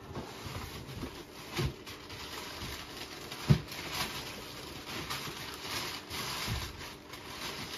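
Rummaging through a box of packaged merchandise: packaging rustling, with scattered knocks as boxed items are shifted, the loudest about three and a half seconds in.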